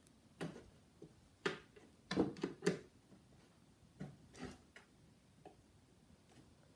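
Irregular light taps and knocks as kittens pounce on, paw at and bump a cardboard shoe box on a hard floor. A quick cluster of knocks about two seconds in is the loudest.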